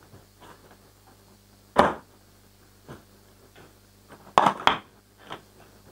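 A cardboard product box being opened and its packed contents slid out and set down on a table. There is one sharp knock about two seconds in and a quick cluster of knocks and rattles near the end, with fainter handling noises between.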